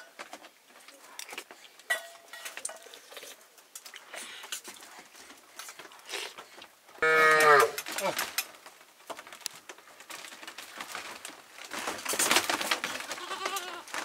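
A livestock animal calls once about halfway through: a low cry under a second long that falls slightly in pitch. Light knocks and clinks come and go around it.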